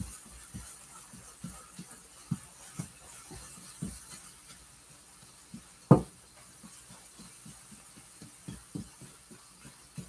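A spatula knocks and scrapes in a small nonstick frying pan as scrambled eggs are stirred and broken up. It makes soft, irregular taps, with one sharper, louder knock about six seconds in, over a faint steady hiss.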